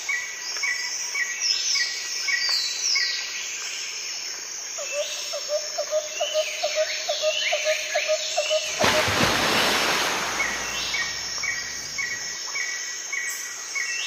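Outdoor nature ambience of birds chirping and singing: repeated short chirps and falling whistled notes. From about a third of the way in, a low chirp repeats about three times a second. A rushing hiss swells up about two-thirds through and fades a couple of seconds later.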